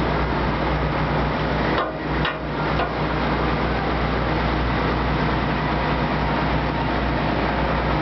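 Steady drone of a cruise boat's engine under a constant rushing noise, dipping briefly about two seconds in.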